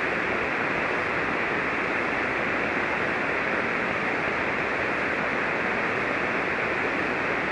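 Steady hiss of 40-meter band noise from a ham radio receiver tuned to single sideband, with no station transmitting.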